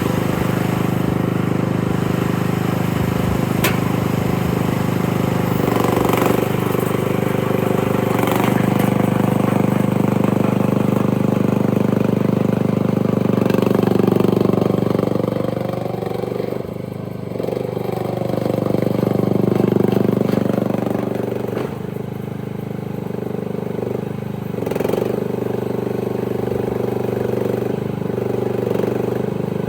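Dig Master DM100 1-ton mini excavator's small engine running steadily. Its note bends down and back up a few times around the middle as the machine is worked, with a few sharp clacks in the first several seconds.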